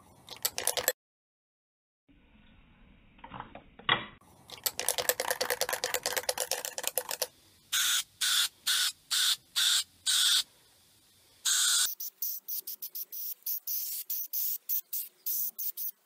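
Aerosol can of hammertone spray paint: the mixing ball rattles rapidly as the can is shaken, then the paint is sprayed in short hissing bursts, five in a row, followed by one longer spray and a quick string of short ones.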